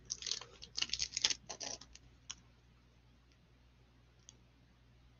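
Gloved hands handling a trading card in a hard clear plastic case and soft plastic sleeve: quick crinkling rustles and clicks of plastic for about two seconds, then two single faint ticks.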